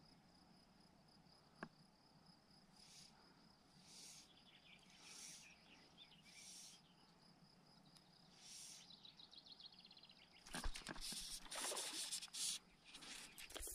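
Faint insects chirping in short high bursts, roughly one a second, over a steady high insect whine. About ten seconds in, louder crackling and rustling noise takes over.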